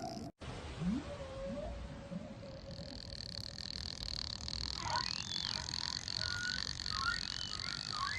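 Whale calls: a couple of short rising sweeps and a long, faint low moan, then brief high squeaks and chirps. A steady high whine comes in about three seconds in.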